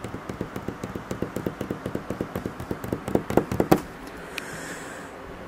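Rapid tapping, about eight taps a second, growing louder and ending in a few sharper knocks just before 4 seconds in, followed by faint hiss.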